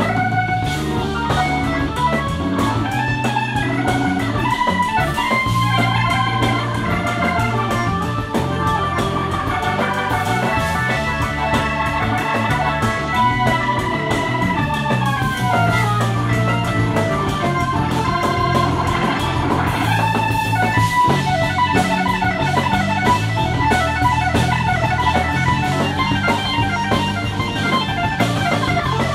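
A live jazz-fusion band playing, led by an organ solo over bass and drums. The organ plays melodic runs, with falling runs around the middle and fast repeated notes through the second half.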